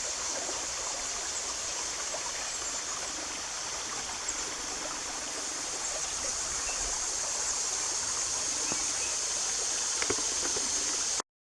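A rocky creek running: a steady, even rush of flowing water.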